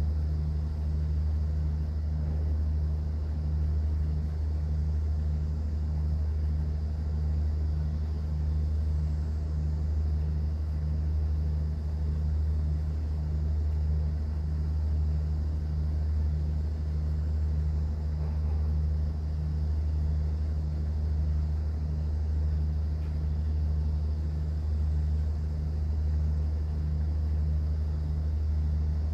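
Cruise boat's engine droning steadily on board, with a deep hum and a regular throb pulsing over it.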